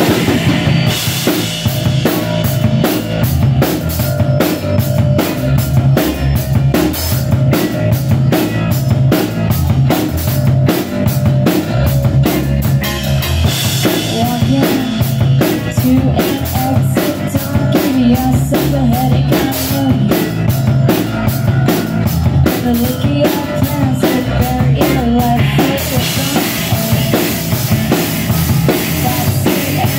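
Live band playing loudly: electric guitars over a drum kit keeping a steady beat.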